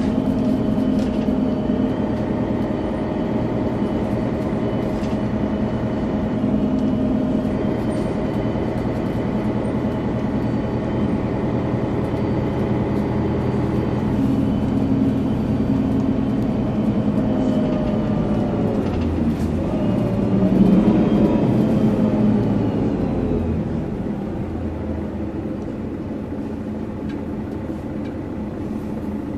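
Mercedes-Benz O530G Citaro bus engine running under way with a thin, steady turbo whistle above it. About two-thirds of the way through, the pitch dips and then climbs as the engine pulls harder and gets louder. It then settles down quieter near the end.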